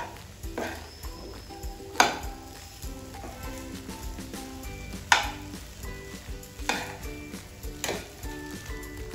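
Steel spoon stir-frying rice with grated beetroot in a nonstick pan, with a light sizzle. The spoon clinks sharply against the pan about five times, loudest about 2 and 5 seconds in.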